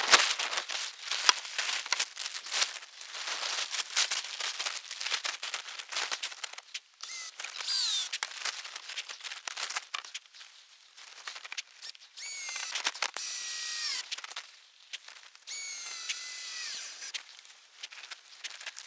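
Plastic tarp rustling and crinkling as it is pulled and folded over a log roof, followed by three high-pitched whines, each a second or two long, that fall in pitch near their end.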